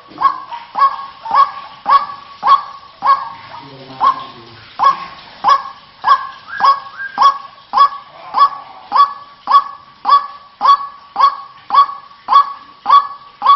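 White-breasted waterhen's harsh, honking "ruak-ruak" call repeated rhythmically, nearly two calls a second, played as a bird-lure recording. There is a short break in the series about four seconds in.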